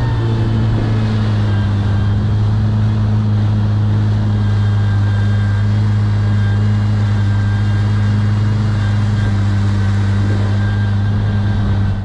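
Kawasaki Ultra 310 jet ski's supercharged four-cylinder engine running steadily at low speed, a loud, even drone, with a Kspeed cool air intake panel fitted that makes the intake sound louder.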